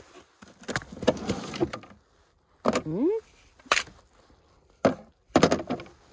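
Clicks and clatter of a pickup's under-seat storage drawer being unlatched and slid open and a fillet knife being pulled out among the gear, with several sharp knocks in the second half.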